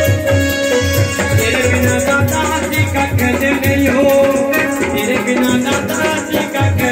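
Live devotional jagran music: a melody over a fast, steady drum beat of about three to four strokes a second, with jingling rattle-like percussion.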